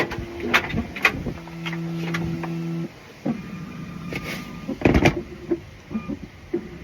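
Sharp clicks and knocks of handling, a small electric motor humming steadily for about a second and a half, then a loud thump about five seconds in.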